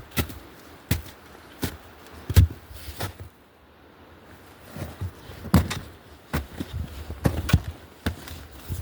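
Footsteps of a person walking with the camera, one step about every three-quarters of a second, pausing for a couple of seconds near the middle and then resuming less evenly.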